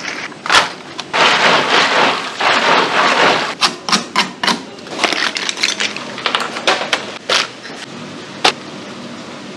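Shellfish being handled and cleaned: shells clacking and knocking against each other and a brush scrubbing a large shell in long stretches of scraping, with a single sharp knock near the end.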